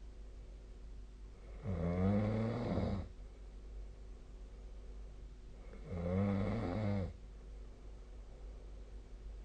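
A sleeping person snoring: two snores about four seconds apart, each lasting a little over a second, over a steady low hum.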